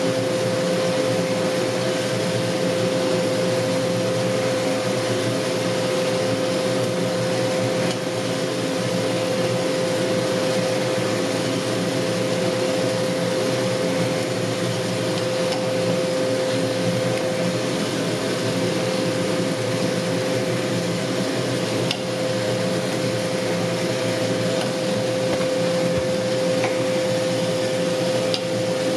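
Mill City 1 kg coffee roaster's fans and motors running steadily: a constant whir of moving air with a steady hum tone, broken only by a few faint ticks.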